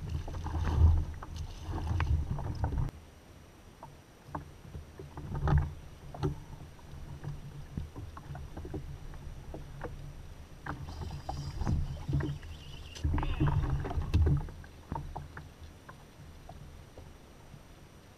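Knocks and clatter on a fishing kayak's hull with water splashing at its side, in irregular bursts with quieter stretches between.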